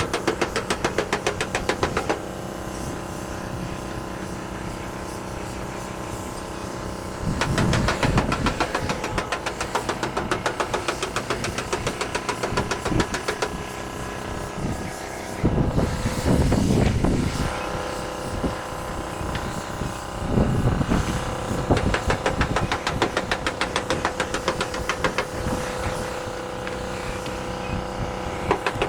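An engine running with a fast, even ticking, swelling louder three times.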